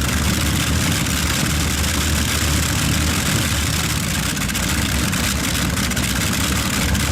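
Green Fighter pulling tractor's three Allison V12 aircraft engines running together at a steady, loud, deep rumble.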